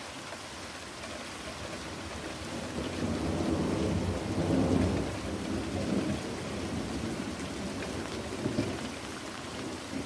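Heavy rain falling steadily, with a long roll of thunder that builds about three seconds in, peaks near the middle and slowly fades.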